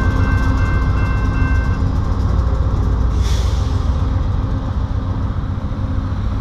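Level-crossing bell ringing, stopping about two seconds in, over the steady low rumble of a VIA Rail P42DC diesel locomotive. A short hiss comes about three seconds in.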